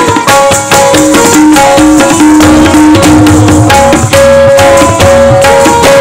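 Kathak accompaniment: tabla playing a fast, dense rhythm under a melodic instrument repeating a short tune of held notes, the lehra that keeps the time cycle for the dancers.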